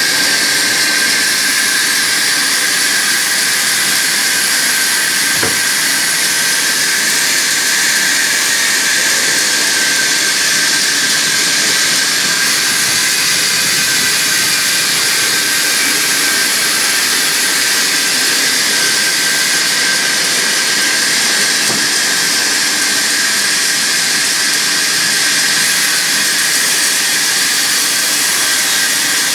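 Sawmill saw running steadily: a loud, even, high-pitched hiss that does not break or change.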